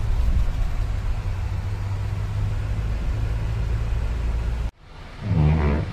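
A 4x4 vehicle's engine and road noise heard from inside the cabin, a steady low drone while driving on a snowy road. It cuts off abruptly near the end, and a short, louder pitched sound follows.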